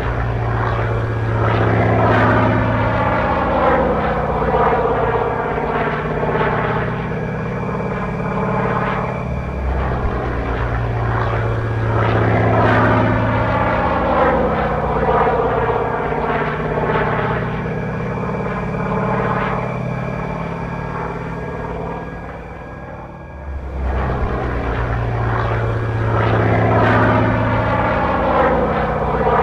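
Radio-controlled Pitts Model 12 scale plane in flight, its onboard sound system giving a radial-engine note over the propeller. It makes repeated passes, the pitch sweeping down and back up about every ten seconds, and goes briefly quieter a little before the end.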